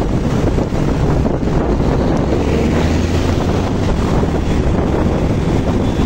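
Heavy wind buffeting the microphone of a vehicle moving at speed, over a low engine drone that grows a little stronger around the middle.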